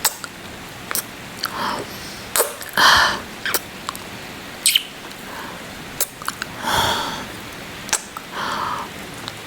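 Close-miked kissing sounds: sharp wet lip smacks every second or so, with soft breaths between them, over a steady patter of rain.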